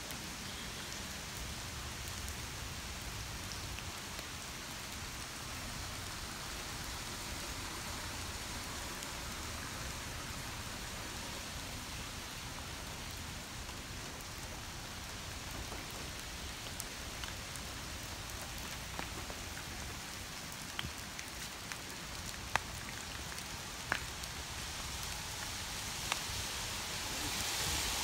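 Steady rain falling on wet pavement and parked cars, with a few sharp drop ticks in the second half. The rain grows louder near the end.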